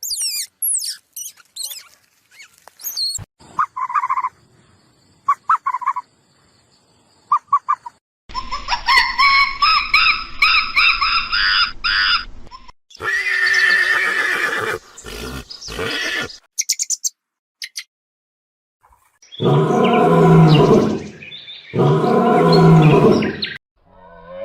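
A series of different animal calls one after another: high chirping at the start, short repeated notes, then longer pitched calls, ending with two long, loud calls.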